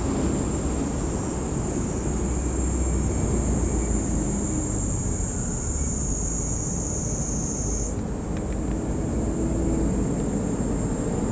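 Steady outdoor background noise: a low rumble with a steady high-pitched whine that slowly drifts lower, then jumps back up about eight seconds in.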